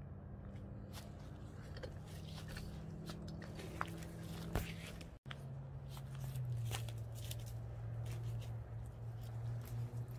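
Built-in blower fan of a Christmas yard inflatable humming steadily as it fills the collapsed nylon figure, with crinkling and rustling of the fabric. After a brief break about five seconds in, the hum is lower.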